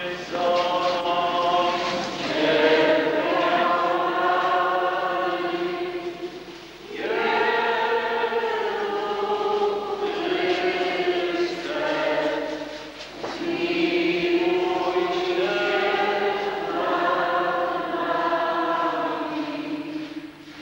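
A hymn sung by many voices together in a church, in three long phrases with short breaks between them.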